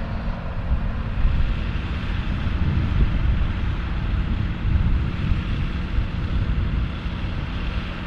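Large farm tractor diesel engines running steadily, with wind rumbling on the microphone.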